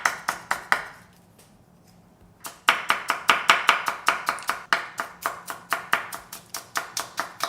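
A kitchen knife chopping bell pepper on a cutting board in quick, even strokes, about four a second, with a pause of about a second and a half near the start.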